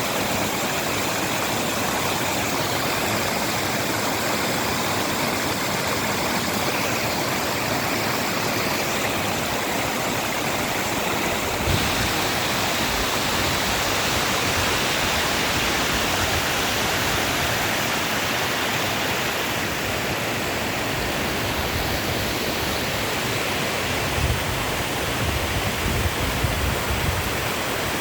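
Waterfall water rushing steadily. There are a few low rumbling bumps near the end.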